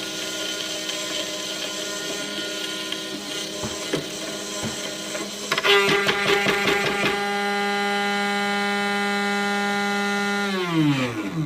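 CNC router spindle whining steadily as it cuts. About six seconds in comes a rapid clatter of impacts as the workpiece, freed because its holding tabs were cut away, is caught by the bit and thrown out. The whine then runs on at a higher pitch and winds down near the end as the spindle stops.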